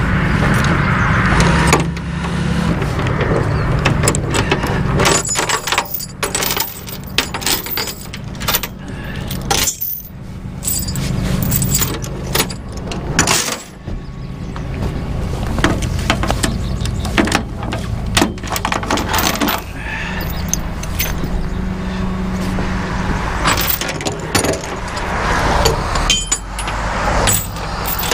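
Rollback tow truck's engine running steadily, with chains and metal hardware clinking and rattling against the steel deck as rigging is handled.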